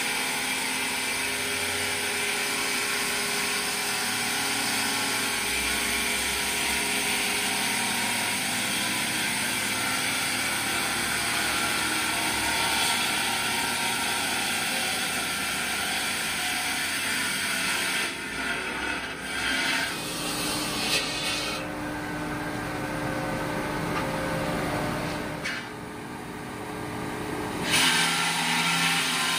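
Large stone-cutting circular saw running and grinding through a block of stone, a steady harsh grinding hiss over the motor's hum. In the second half the sound changes abruptly several times.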